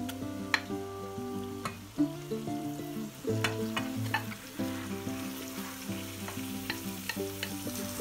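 Ground beef sizzling as it goes into a hot frying pan and is stirred with a wooden spatula, with sharp clicks from the spatula and bowl against the pan; the sizzle grows louder near the end. Acoustic guitar background music plays underneath.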